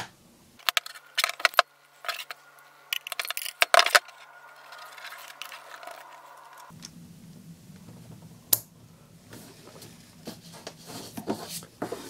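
Light clicks and taps of small metal crimp contacts and hand tools being handled on a tabletop, clustered in the first four seconds, then a few scattered ticks.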